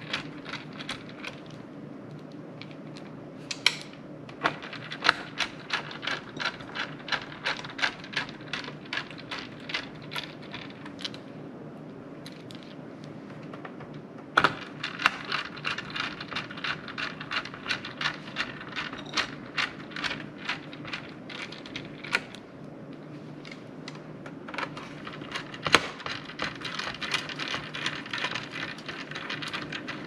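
Small screwdriver driving the little screws back into a laptop's chassis: runs of quick, even clicks, about three a second, in three spells, with a couple of louder knocks, over a steady low hum.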